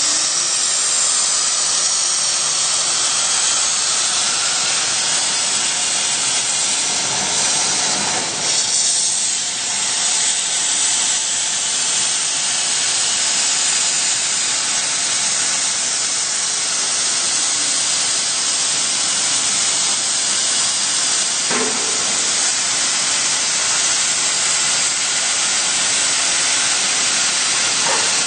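CNC plasma torch cutting sheet metal: a loud, steady hiss of the plasma arc and its gas jet, with a brief dip about eight seconds in.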